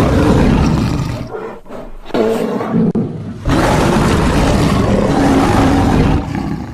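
Roaring sound effect of a large wild animal: three deep roars, a first that fades after about a second, a short second one, and a long third one from about halfway that tails off near the end.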